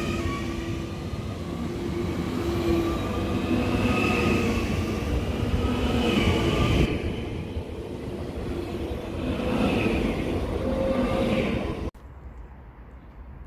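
České dráhy class 641 electric multiple unit, two coupled sets, running past along a station platform: a steady rail rumble with whining tones that rise and fall. It cuts off suddenly about 12 seconds in, leaving only faint background.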